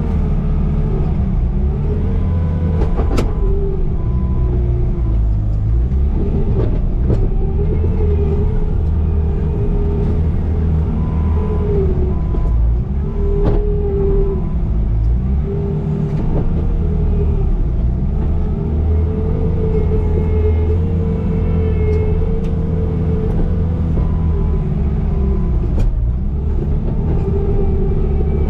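Bobcat T595 compact track loader's diesel engine running steadily under load, with a whine that wavers up and down as it works, and a few sharp knocks.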